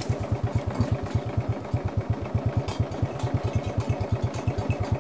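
A small engine running at a steady idle, with a fast, even low pulse.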